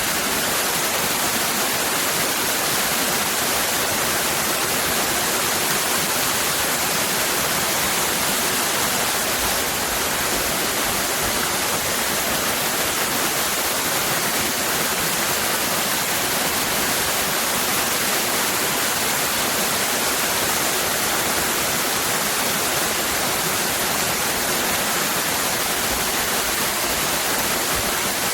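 Waterfall cascading, a steady hissing rush of falling water that stays even throughout.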